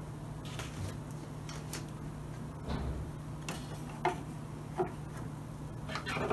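A vinyl LP being handled and laid onto a turntable platter: a soft thump about two and a half seconds in, then several separate light clicks and taps, with a cluster of clicks near the end, over a steady low hum.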